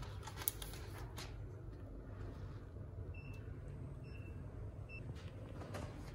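Electronic keypad door lock beeping: three short high beeps about a second apart as buttons are pressed, with a few soft clicks of handling and a low room hum underneath.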